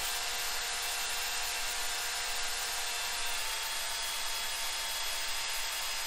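A vibratory power screed runs steadily as it is drawn across wet concrete: an even mechanical hum with a faint constant whine.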